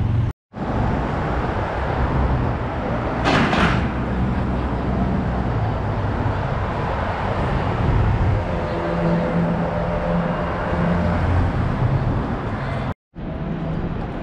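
City street traffic: cars and buses running along a busy downtown avenue, with a short burst of hiss about three seconds in. The sound cuts out briefly twice, near the start and near the end.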